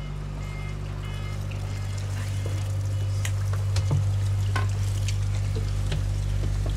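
Steady low drone of an inland cargo ship's diesel machinery heard inside the accommodation, growing louder over the first few seconds. Scattered light knocks and clicks, likely footsteps and handling, sit over it.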